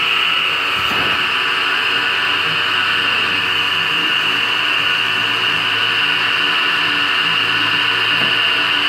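Motor-driven pottery wheel running: a steady whine over a low hum, holding an even level throughout.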